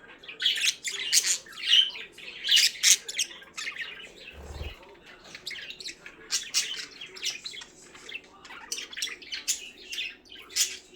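Pet budgerigars chirping and chattering in quick, busy calls. There is a brief low thump about four and a half seconds in.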